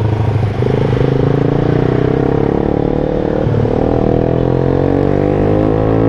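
Yamaha Jupiter MX underbone motorcycle's single-cylinder four-stroke engine running under way. It holds a steady note, dips briefly about halfway through, then rises in pitch as the bike accelerates.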